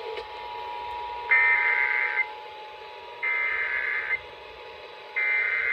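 Emergency Alert System (SAME) header: three bursts of digital data tones, each about a second long with about a second between them, over faint steady tones. The bursts open an EAS activation for a severe thunderstorm warning.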